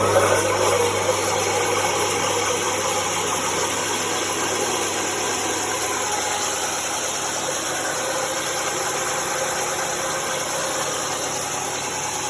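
A 24-inch resaw bandsaw running free with no cut: a steady motor hum under the even whir of the blade and wheels. The blade is freshly tensioned and not yet tracked, its teeth riding off the front of the wheels.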